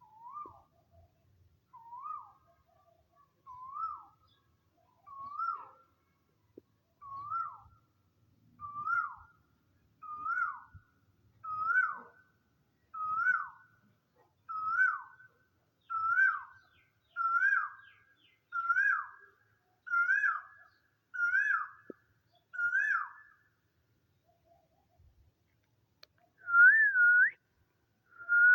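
A whistled bird-like call: one short note, rising then dropping sharply, repeated about sixteen times. The notes quicken slightly and grow steadily louder, then after a pause come a longer, louder whistle and the start of another near the end.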